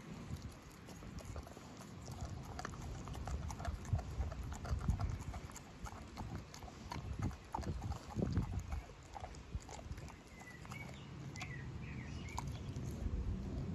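American Staffordshire bull terrier gnawing a giant raw marrow bone cut in half: irregular clicks and knocks of teeth on bone.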